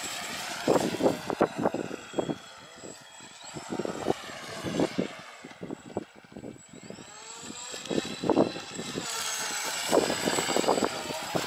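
RC speedboat's motor whining as it runs at speed, the whine gliding up and down in pitch with the throttle. Irregular rough gusts of noise run through it, from the hull slapping the water and wind on the microphone.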